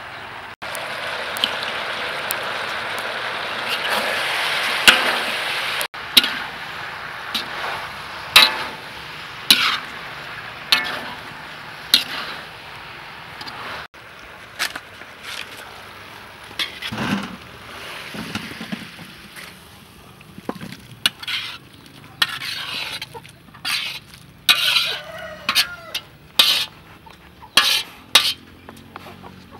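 Pork liver with green peppers and cauliflower stir-frying in a large wok over a wood fire. A loud, steady sizzle fills the first six seconds, then eases into quieter frying broken by repeated clinks and scrapes of a utensil against the wok, with faster clatter near the end.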